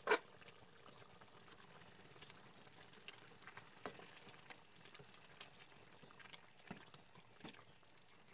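Chicken afritada in coconut milk simmering in a pot: a steady, faint bubbling with scattered soft pops and clicks, after a single sharp clack right at the start.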